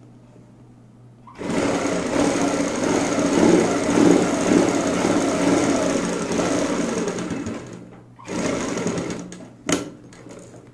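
Sewing machine stitching along an elastic waistband. It starts about a second and a half in and runs steadily for about six seconds, stops briefly, then runs again for about a second. A single sharp click follows near the end.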